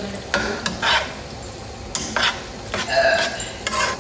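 A utensil scraping and clinking against the inside of a pot while sauce is stirred, in a series of short, irregular strokes.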